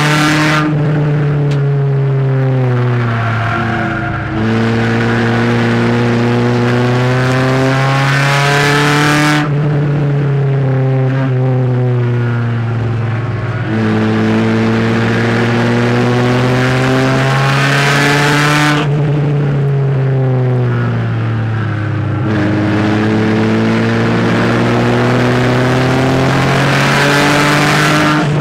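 Small race car's engine heard from inside its cabin, running hard around an oval. It speeds up steadily down each straight, then drops in pitch as the driver lifts off into the turns, a cycle of about nine seconds that repeats three times.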